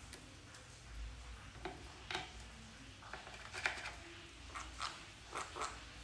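Faint, irregular small clicks and taps from a rose-ringed parakeet moving about on a tabletop, coming more often in the last two seconds.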